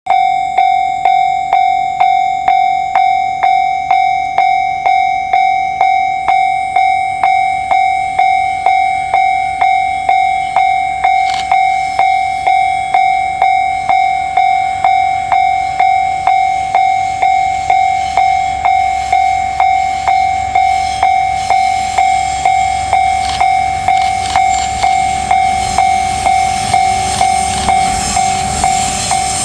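Japanese level-crossing alarm ringing: a single electronic clang-like tone struck about twice a second, each strike dying away before the next. Near the end, the noise of an approaching train grows underneath it.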